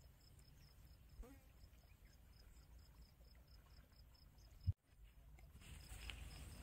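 Near silence with the faint, even high-pitched chirping of a cricket, about five pulses a second. A single short low thump comes about three-quarters of the way through, after which a soft rushing hiss grows louder.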